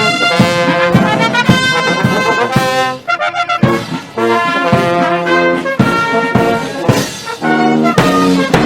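Trumpets and other brass playing a lively tune in quick, separate notes, with sharp percussion hits underneath and a couple of brief breaks a few seconds in.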